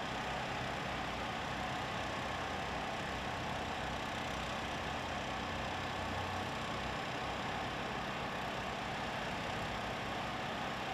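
Vehicle engine running steadily, a constant low hum under even noise that does not change.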